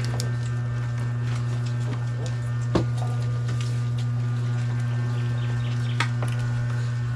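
A steady low motor hum with a few fainter steady higher tones above it, broken by two short sharp clicks, about three seconds in and again about six seconds in.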